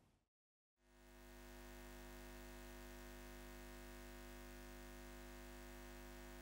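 Near silence with a faint, steady electronic drone of many held tones, fading in about a second in and fading out at the end.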